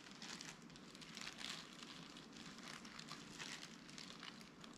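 Faint, irregular crinkling and rustling of thin disposable plastic gloves as hands arrange fillings on a kimbap roll.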